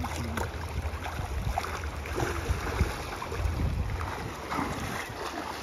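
Flowing water rushing steadily, with wind buffeting the microphone in a low rumble and a few small knocks and splashes.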